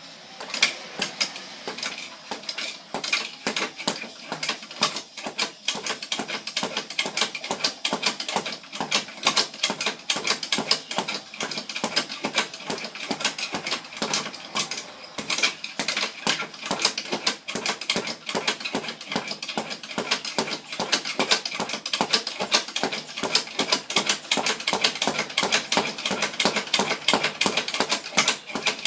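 Speed bag being punched: a fast, unbroken stream of sharp hits that starts abruptly.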